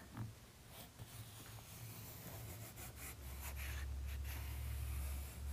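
Faint rubbing of an alcohol prep pad wiped through the felt window-run channel of a truck door, over a low steady hum that grows louder about three seconds in.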